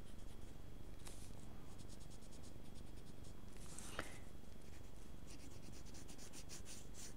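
White charcoal pencil scratching on a paper book page in quick short strokes, with one firmer stroke about four seconds in.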